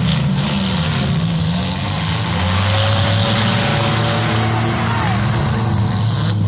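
Several demolition derby cars' engines running and revving at once, rising and falling in pitch as the cars drive and ram, over a steady roar of noise.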